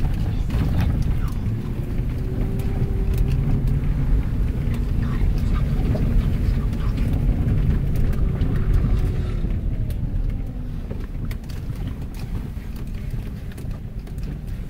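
Cabin sound of a Cadillac Escalade SUV driving on a rough, wet road: steady low engine and tyre rumble with occasional knocks over the bumps. It eases off somewhat about ten seconds in.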